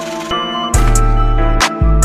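Background music: held chords, with a heavy deep bass beat and cymbal hits coming in under a second in.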